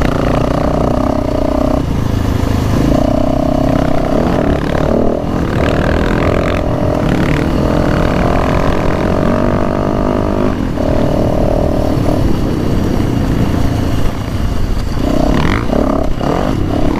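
Dirt bike engine running under throttle at trail speed, its steady note shifting as the rider works the throttle, with brief breaks in the note about two seconds in and again around ten seconds.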